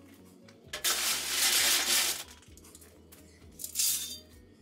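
Gravel scraped and rattled by a long-handled garden tool, in two bursts: a longer one about a second in and a short one near the end. Soft background music plays underneath.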